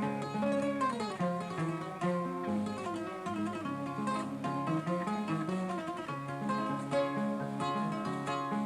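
Kora, the West African 21-string harp-lute, played solo. A repeating low plucked figure runs under quicker plucked melody notes higher up.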